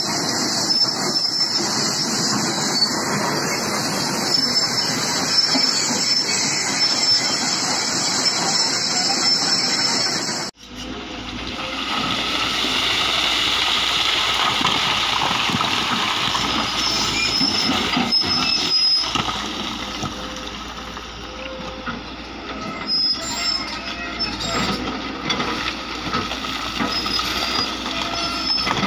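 Volvo EC210 tracked excavator working: a steady, loud diesel engine and hydraulic noise. After an abrupt change about ten seconds in, rock and earth clatter and slide down the slope as the bucket breaks away the mountain face.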